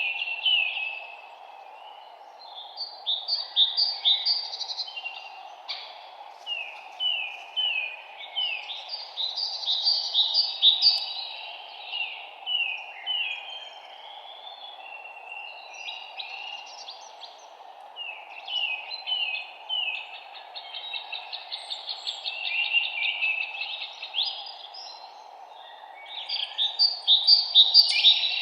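Several songbirds singing in early spring: phrases of quick, repeated downward-sweeping chirps and trills, broken by short pauses, over a steady low background hum.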